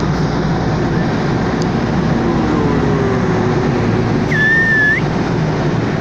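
Steady engine hum and road noise inside a truck cab moving slowly along. A short, high whistle-like tone sounds once, a little over four seconds in, lasting about half a second.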